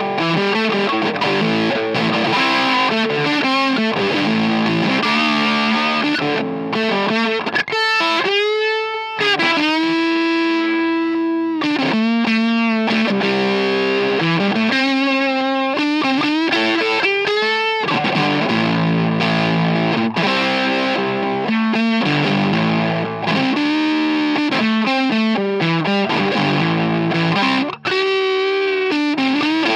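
Electric guitar (Fender Telecaster) played through a D*A*M Meathead silicon fuzz pedal at full volume, on the neck pickup with the guitar's volume rolled down. It plays fuzzy riffs and held notes that waver in pitch.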